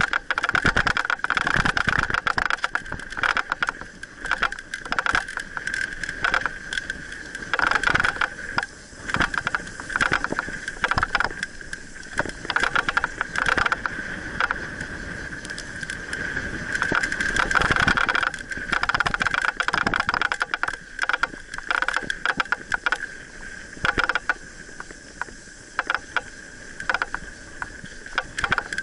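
Mountain bike rolling fast down a dirt trail, its frame and parts rattling and knocking over bumps, with tyre and wind noise on the bar-mounted camera and a steady high buzz underneath.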